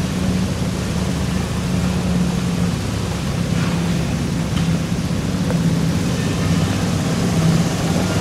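Train running along the track, heard from aboard: a steady low mechanical hum.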